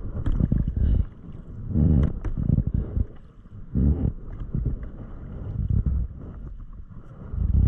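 Kayak paddle strokes dipping and splashing in the water about every two seconds, with low buffeting gusts of wind on the camera microphone.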